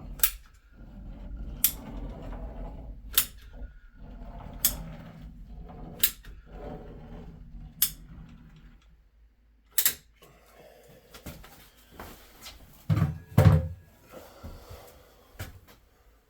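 Thin-set mortar being spread over backer-board seams with a metal hand tool. Sharp clicks come about every second and a half, with soft scraping between them. About thirteen seconds in there is a louder knock and thump.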